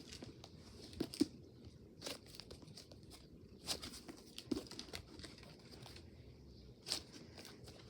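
Scattered soft crinkles and clicks of something being handled, a few isolated ones spread irregularly over several seconds.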